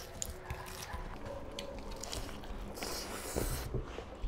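Close-miked eating: chewing and small crunches of fried food, with fingers squishing and mixing rice on steel plates. A louder crunching stretch comes about three seconds in.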